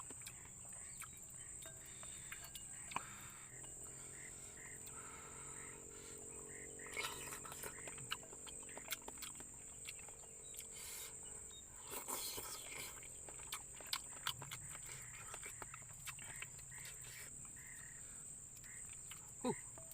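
Forest ambience at dusk: a steady, high-pitched insect drone with short animal calls repeating faintly, and scattered light clicks and knocks.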